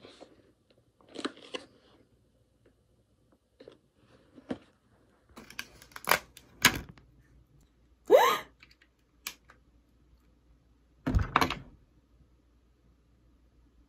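Scattered handling noise of small objects and packaging: rustles, taps and clicks, with a short rising squeak about eight seconds in and a longer rustle a few seconds later.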